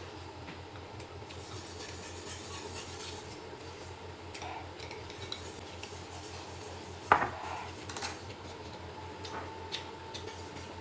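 Chopsticks clicking and scraping against a glass bowl of noodles, with one sharp, loud clink of dishware about seven seconds in, over a low steady hum.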